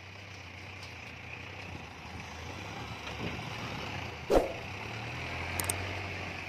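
Sonalika tractor's diesel engine running under load as it pulls a fully loaded trolley, growing slowly louder. A single sharp knock comes about four seconds in.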